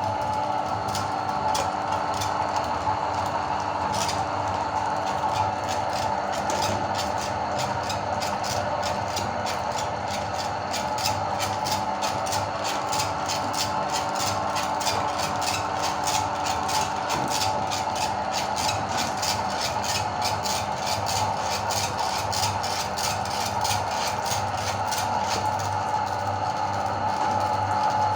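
Electric meat grinder motor running with a steady hum while grinding hard candy, with a rapid crackle of sharp clicks over it.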